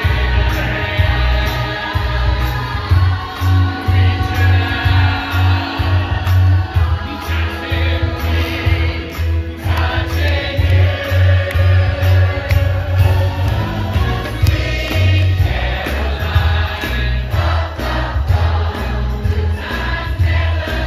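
Theatre audience and cast singing together in a large crowd chorus over a live band, with a steady bass beat of about two pulses a second.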